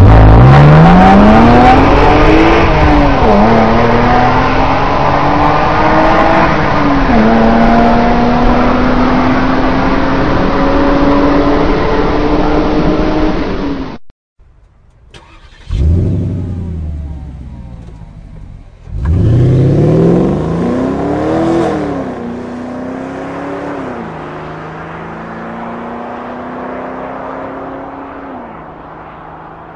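A car engine accelerating hard through the gears: the engine note climbs, drops at each upshift, then climbs again. It cuts off abruptly about halfway through. After a short gap, another full-throttle run with quick upshifts starts and fades away.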